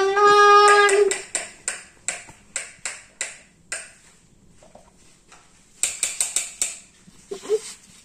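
A toddler's voice holds one steady vocal sound for about a second, then hard plastic toy trucks and excavators knock and clatter in a string of sharp clicks, with a quick burst of rattling clacks about six seconds in.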